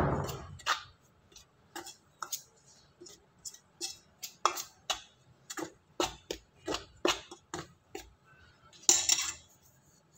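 Metal spoon scraping and clinking against a steel bowl in short, irregular strokes while hot oil is stirred into dry wheat flour. A longer, louder scrape comes near the end.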